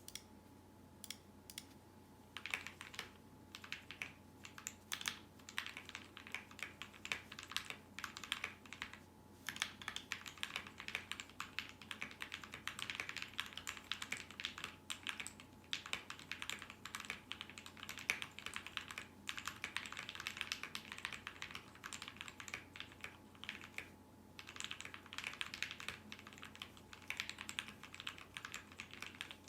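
Typing on a GK61 60% mechanical keyboard with lubed Gateron optical red linear switches, foam-filled case and PBT keycaps: a steady run of quick, irregular keystrokes with brief pauses.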